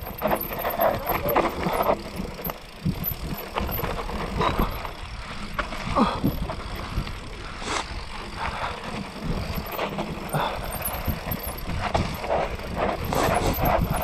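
Mountain bike ridden down a rough dirt trail: tyres running over dirt and rocks, with irregular knocks and rattles from the bike over the bumps, over a steady low rumble.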